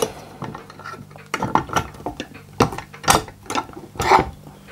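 A steel G-clamp being unscrewed by its sliding T-bar handle, giving irregular ratcheting clicks and clinks of metal on metal as the screw is backed off.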